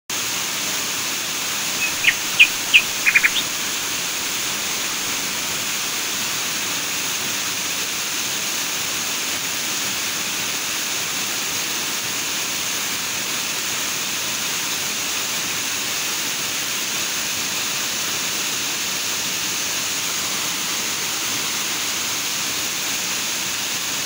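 Waterfall pouring over rocks: a steady, even rush of falling water. A few short, high chirps come about two to three seconds in.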